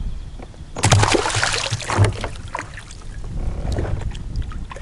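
Water splashing about a second in as a small northern pike is released from a kayak and drops back into the river. A quieter splash and rustle follow a couple of seconds later.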